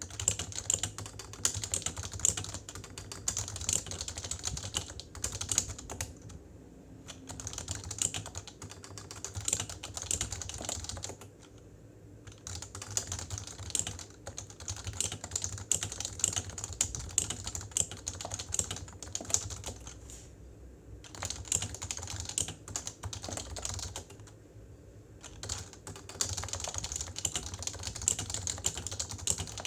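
Continuous typing on a PFU Happy Hacking Pro 2 keyboard with stock Topre electro-capacitive switches (45 g, uniform weighting): fast runs of key presses broken by brief pauses about a quarter, a third, two thirds and four fifths of the way through.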